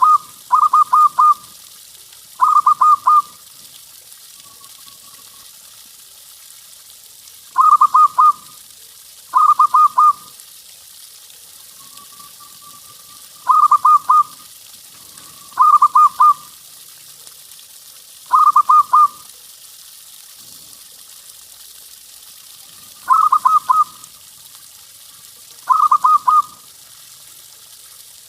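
Zebra dove (perkutut) cooing loudly: short phrases of rapid repeated notes, all on about the same pitch, come singly or in pairs with pauses of a few seconds between them. A soft drawn-out rising coo comes twice, over a faint steady hiss.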